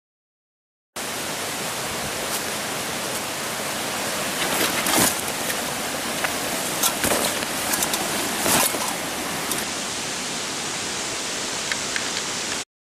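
Steady rush of a flowing mountain stream. Several brief rustles and clicks from a fabric backpack being handled come through it in the middle. The sound cuts in about a second in and stops abruptly near the end.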